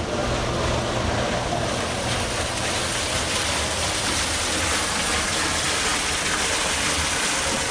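Steady rushing noise at an even level, like running water, starting abruptly and stopping near the end.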